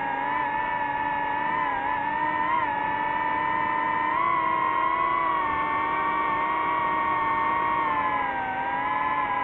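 DJI FPV drone's motors and propellers whining steadily in flight. The pitch wavers with the throttle, rising a little about four seconds in and sagging near the end.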